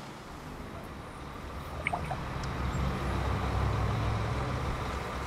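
Low engine rumble of a road vehicle going by in the street. It swells about halfway through and eases slightly near the end, with a brief click near two seconds in.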